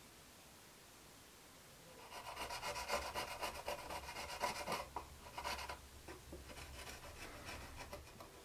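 A hand file rasping back and forth on the edge of a carbon-fibre camera platform, in a run of uneven scraping strokes that starts about two seconds in and stops near the end.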